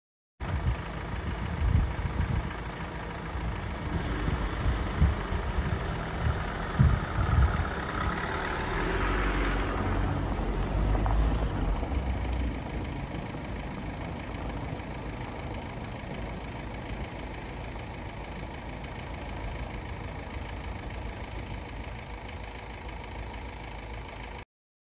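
Engine of a white service van running at idle, a steady low rumble, with several low thumps in the first eight seconds and a swell of noise about nine to ten seconds in.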